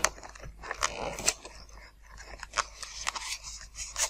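Carbon-fibre tube being pushed and twisted through a foam model aircraft's polystyrene nose to cut a wire channel: an irregular crunching and creaking of the foam, with sharper cracks about a second in and near the end.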